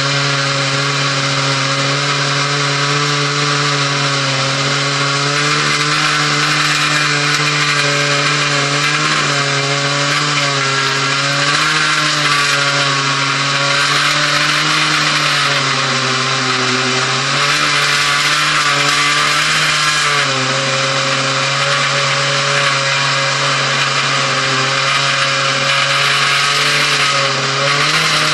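Two-stroke chainsaw on an Alaskan chainsaw mill running flat out, ripping lengthwise through a log. A steady, loud engine note whose pitch sags slightly from time to time as the bar is fed into the cut, over the hiss of the chain cutting wood.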